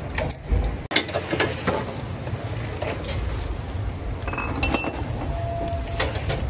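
Scattered metal clinks and knocks as the steel tube frame of a yatai food cart is handled and fitted together, over a steady low rumble.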